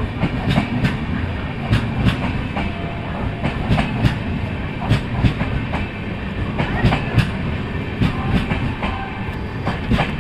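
LHB passenger coaches of an express train rolling past as it departs. The wheels clatter over the rail joints in sharp, irregular clicks over a steady rumble.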